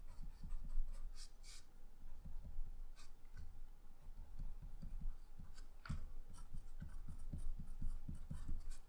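Staedtler Mars Lumograph 3B graphite pencil scratching on drawing paper in many short, irregular strokes, as dashed stitch lines and laces are sketched.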